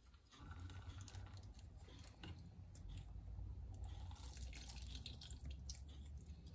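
Lemon juice dripping from a hand-held citrus squeezer into a bowl of chopped lobster meat as the lemon is pressed, faint, with small scattered ticks over a low steady hum.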